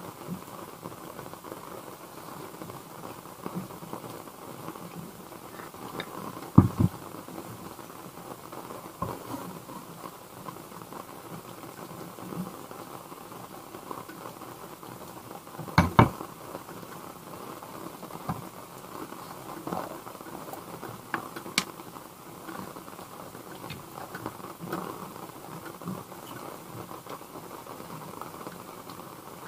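Rain pattering steadily on a camper van's roof, with light clicks and scrapes of chopsticks mixing noodles in a ceramic bowl. Two sharp knocks come about six and a half and sixteen seconds in, the second the loudest.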